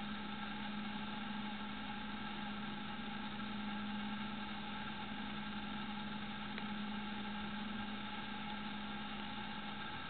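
A steady machine hum with one strong low tone and several fainter higher tones, and a single faint click about six and a half seconds in.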